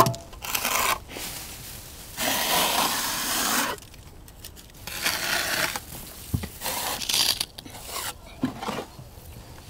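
Steel trowel scraping and rubbing over filler and reinforcement mesh on a plastered wall, in several strokes, the longest about a second and a half.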